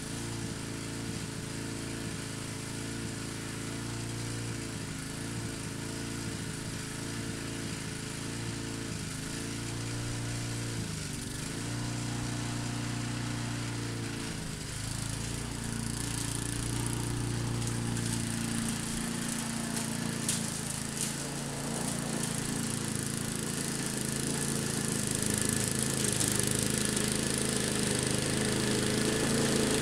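Walk-behind gasoline lawn mower engine running, its pitch dipping briefly a few times as it labours through tall ragweed. It grows louder near the end as the mower comes closer.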